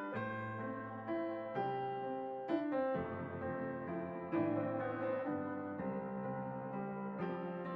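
Gentle background piano music: single notes and chords struck one after another, each ringing and fading.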